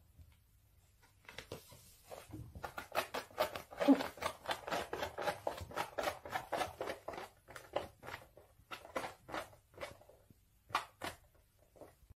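A cat rubbing its face against sneakers, mouthing them and clutching a slipper: a dense, irregular run of soft clicks and rustles that starts about a second in and thins out near the end.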